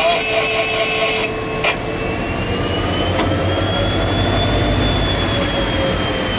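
EMD GT46MAC diesel locomotive heard from inside its cab: the 16-cylinder two-stroke 710 engine runs with a steady low rumble that grows stronger partway through. A high whine rises in pitch over a few seconds and then eases slightly, with a couple of faint clicks.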